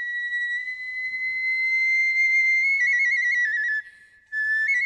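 A Japanese transverse bamboo flute of kagura music playing a high, long-held note that warbles into quick trills about three seconds in, stops briefly about four seconds in, then comes back.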